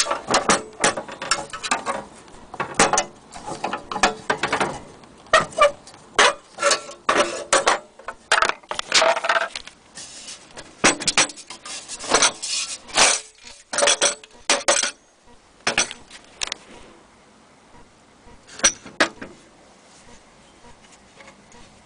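Metal parts of an antique military stove being handled, with irregular clinks and clanks of metal on metal. They come thick at first, stop about three quarters of the way through, and a couple more come near the end.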